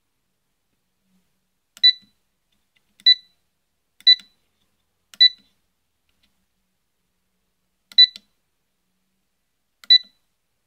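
Digital thermostat relay board's buzzer beeping briefly with each press of its buttons while the switch-on and switch-off temperatures are being set. Six short beeps: four about a second apart, then two more about two seconds apart, each with a faint button click just before it.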